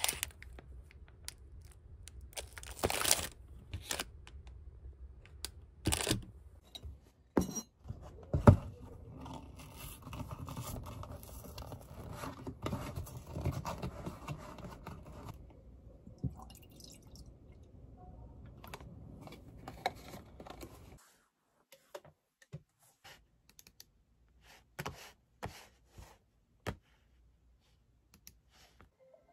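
Food packaging being handled on a desk: a plastic wrap packet crinkling and a paper juice carton being opened, with scattered knocks and taps. A few faint clicks of a computer mouse near the end.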